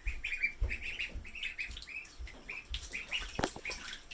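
Several ducklings peeping, short high chirps several times a second, with a couple of sharp clicks about three and a half seconds in.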